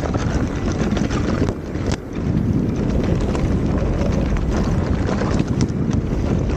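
Wind buffeting a moving action camera's microphone while riding an electric unicycle over a loose, stony dirt trail, with tyre rumble and scattered sharp clicks.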